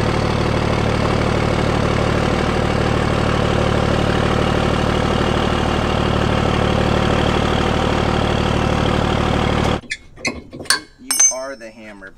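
Pickup truck engine idling steadily while the truck camper backs slowly toward the boat trailer's hitch. It stops abruptly near the end, followed by a few sharp metal clinks of hitch hardware.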